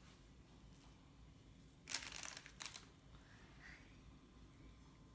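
Near silence with a brief rustle about two seconds in and a shorter one just after.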